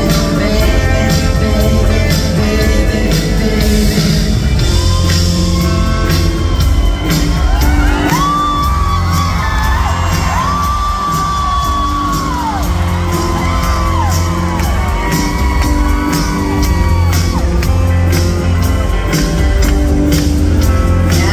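Live rock band playing on a concert stage, heard from among the audience in a large hall: a steady drum beat and heavy bass with a female lead vocal. Through the middle come several long high held notes that bend up and fall away. Whoops come from the crowd.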